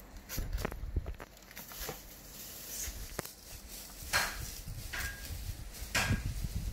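Rustling, knocks and scuffs as a baby monkey paws at vegetables and a wicker basket, with short sharp rustles about four and six seconds in.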